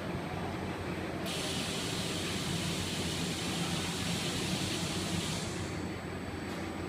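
Steady factory machinery hum, with a hiss of air that starts abruptly about a second in and fades out near the end as the palletizing robot's vacuum gripper grabs and holds a door panel.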